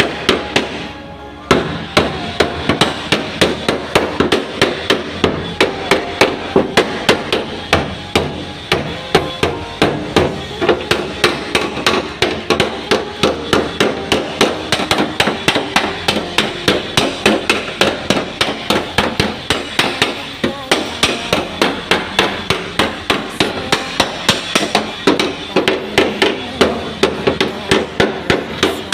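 Hammer beating sheet-metal car body panels, a steady run of blows at about three a second: panel-beating dents out of a Honda Brio's bodywork.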